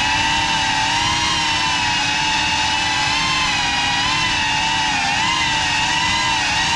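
Four brushless motors and ducted 3.5-inch propellers of a GEPRC Cinelog 35 cinewhoop drone, whining steadily in flight. The pitch wavers slightly up and down as the throttle changes.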